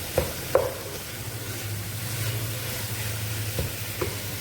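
Onion-tomato masala sizzling in a pan as a little water is added to it, with a few sharp knocks of a utensil against the pan near the start and near the end.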